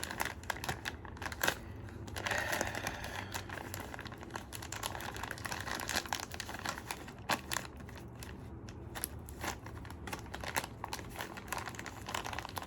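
Crinkling of a black blind-box bag handled and pulled at by hand to get it open, with many small crackles, busiest a couple of seconds in.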